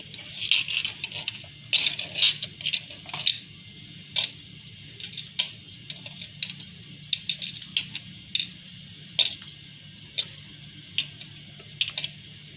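Irregular light metallic clinks and jingles, one to three a second, as hands press and roll minced beef into kabab balls in a plate, over a low steady hum.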